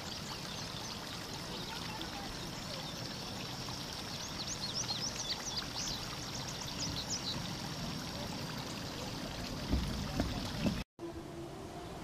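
Steady rushing noise of wind and flowing water under a faint, steady high whine; a small songbird gives a quick run of high chirps from about four to seven seconds in. A few low thumps come near the end, and the sound drops out for an instant at a cut.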